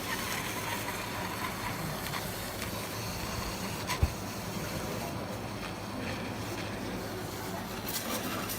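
Robotic welding at work: a steady hiss with a single sharp click about four seconds in and a few faint clicks near the end.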